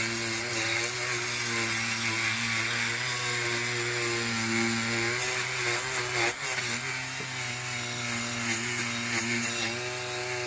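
Handheld rotary tool running steadily, its small disc grinding off the stubs of the old window posts on a diecast toy cab. The motor's pitch and level sag briefly about six seconds in, then recover.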